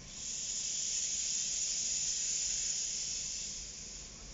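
A sustained hiss of pressure being released, coming on suddenly, holding for about three seconds and then dying away.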